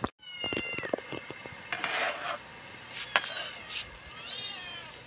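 Three short, high-pitched, meow-like animal calls: the first falls at its end, and the last arches up and back down. A few sharp knocks and a brief scrape come between them.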